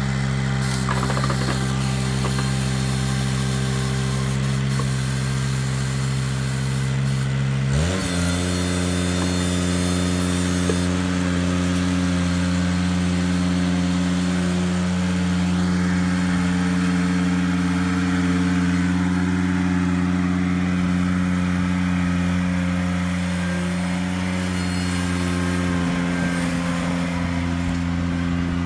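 Ventrac 4500Z compact tractor's Kubota diesel engine running steadily at low speed, then revved up quickly about eight seconds in and held at the higher speed as the tractor lifts and carries a log in its grapple bucket.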